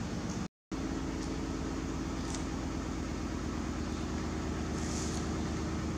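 A steady low mechanical hum, cut off completely for a moment about half a second in, with a few faint brief rustles over it.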